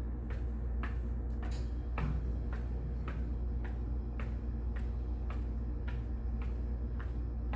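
Light taps of sock-clad feet on the floor during wide seated marches, about two a second, over a steady low hum.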